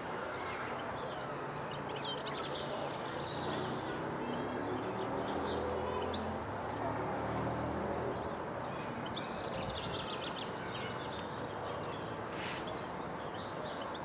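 Small songbirds chirping and twittering, with short trills coming and going, over a steady low background rumble.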